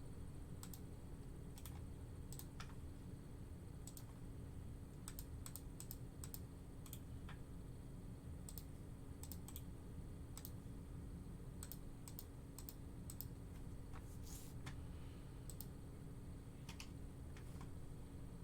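Faint typing on a computer keyboard: scattered, irregular key clicks over a steady low hum.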